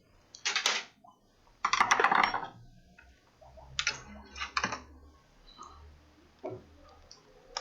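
Small hard objects clicking and rattling as they are rummaged through and handled, in irregular bursts, the loudest and longest about two seconds in.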